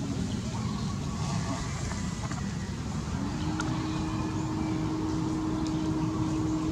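A motor running steadily with a low hum. Its tone fades out about half a second in and comes back about three seconds in.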